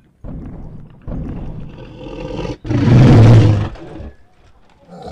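Tyrannosaurus rex roar sound effect: a deep rasping growl that swells into a loud roar about two and a half seconds in, then falls away near the end.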